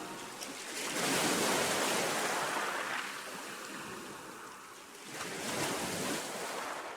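Sea surf washing in with rising and falling noise, swelling twice.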